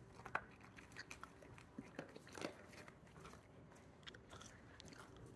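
Faint crunching of a dog chewing dry kibble: scattered, irregular small crunches and clicks.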